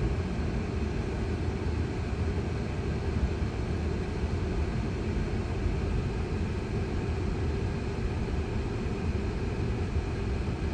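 Steady low rumble and hiss of a Tesla's cabin: road and ventilation noise with no engine sound, even throughout.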